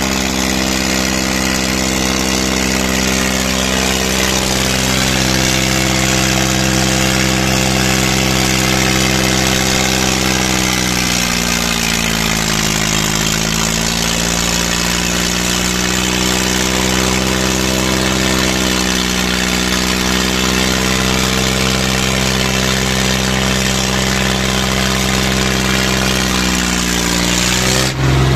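Diesel tractor engines running hard under load in a tug-of-war pull. Their pitch sags from about a third of the way in as the engines lug down, recovers, then dips briefly again near the end.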